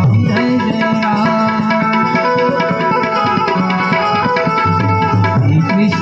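Instrumental interlude of a Gujarati devotional dhun: harmonium holding a melody over a steady tabla rhythm, the tabla's bass drum sliding up and down in pitch.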